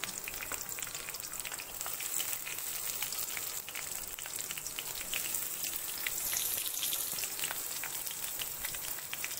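Chopped onion frying in hot oil with cumin seeds in a kadai: a steady sizzle with many small crackles.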